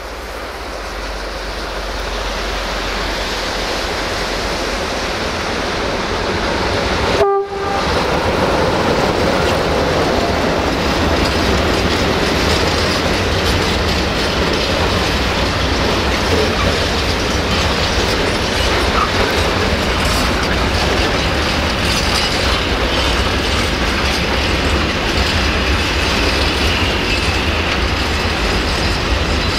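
Electroputere LDE2100 (060-DA) Sulzer diesel locomotive passing close, followed by a long train of hopper wagons rolling by with wheels clicking over rail joints. The steady rumble grows louder over the first few seconds. About seven seconds in there is a brief sharp sound and a momentary break.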